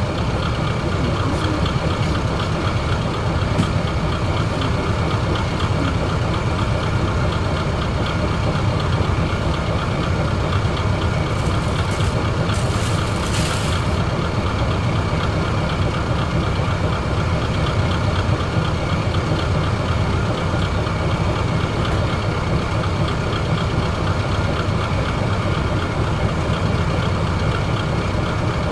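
Diesel railcar engine idling steadily while the train stands at the platform, heard from inside the driver's cab. A brief hiss about 12 seconds in.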